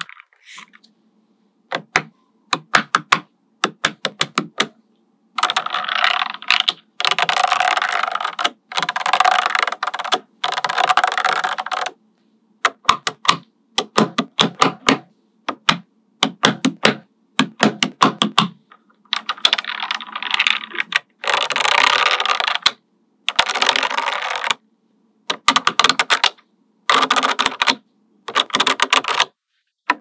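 Small magnetic balls clicking and snapping together, in quick runs of sharp clicks and short rattling clusters that cut off abruptly between brief silent gaps.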